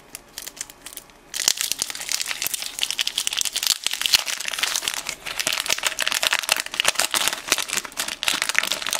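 Topps Stadium Club trading-card pack wrapper crinkling as the pack is opened and handled: a few light ticks at first, then dense, continuous crinkling from about a second and a half in.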